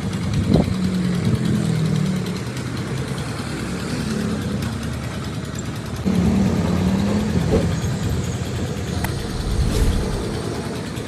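An engine running steadily, its pitch wavering up and down, with a few short knocks.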